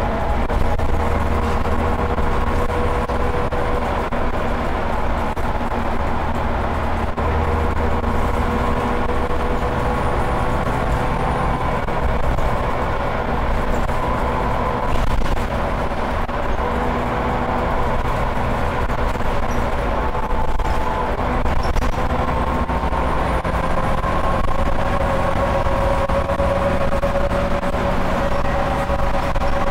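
Scania OmniCity single-deck bus heard from inside the passenger saloon while driving at speed. A steady engine and road drone runs throughout, with a whine whose pitch creeps slowly upward over the last few seconds.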